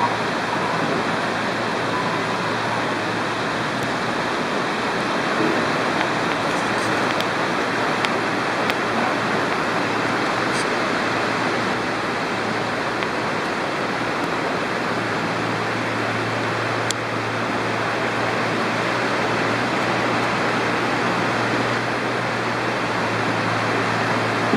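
Nachi Falls, a tall waterfall, pouring steadily: an even rushing of falling water.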